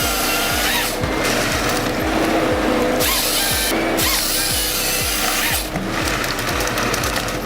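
Ponsse Ergo 8W harvester's head sawing through thick logs, the cutting noise starting and stopping every second or two. Background music with a steady beat plays underneath.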